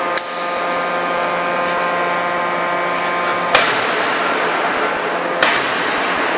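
CNC closed die forging hammer and its shop machinery: a steady machine hum with two sharp blows, about three and a half seconds in and again near five and a half. The noise is louder between the two blows.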